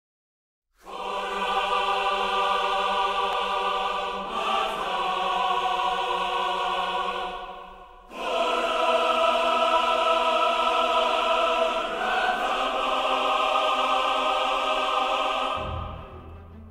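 Choral music: a choir singing long held chords that change every few seconds, with a short break about halfway through. It fades out near the end, where a low steady hum comes in.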